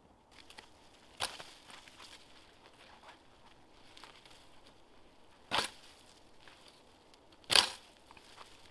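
Dry spruce branches rustling and crackling as they are carried, with three sharp swishing cracks: one about a second in and two more near the end, the last the loudest.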